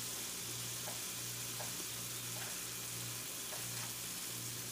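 Diced charque, tomato and onion frying in oil in a metal pot: a steady sizzle.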